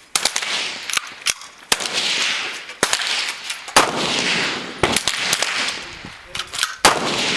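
Rifles firing along a firing line at an uneven pace, several shooters at once, about a dozen sharp shots in all, each trailed by a ringing echo.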